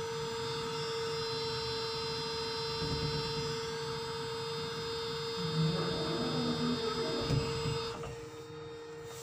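Ship's provision crane running: a steady motor hum with a thin high whine over it. Most of it cuts off about eight seconds in, leaving a quieter hum. Some low rumbling and a knock come in about six to seven seconds in.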